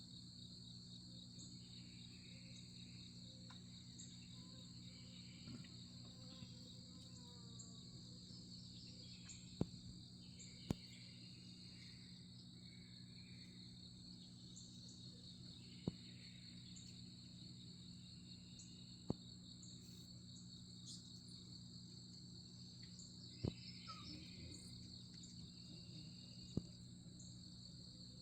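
Faint, steady, high-pitched insect trilling like a cricket chorus over a low steady hum, with scattered faint bird chirps and six sharp clicks.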